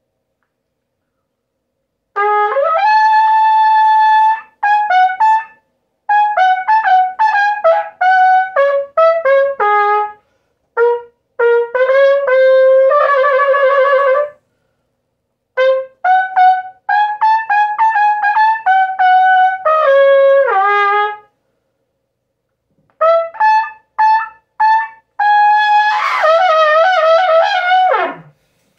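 Solo trumpet playing melody phrases of short and held notes, with pauses between phrases. Near the end comes a loud, wavering trill that does not come out cleanly and drops away in pitch.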